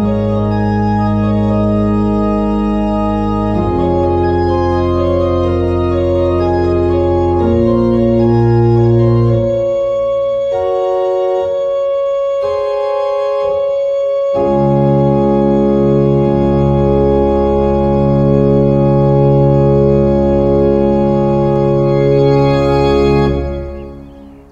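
Church organ playing a free prelude in slow, sustained chords over a deep bass. The bass drops out for a few seconds in the middle and comes back, and near the end the last chord is released and dies away in the church's reverberation.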